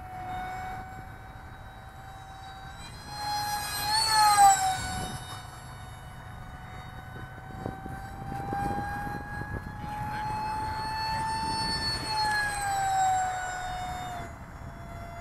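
Electric ducted fan of an Electrifly F-20 Tigershark RC jet whining in flight, a steady high whine with many overtones. It swells loudest about four seconds in, its pitch flicking up and then dropping, and later drifts slowly up and falls away again near the end.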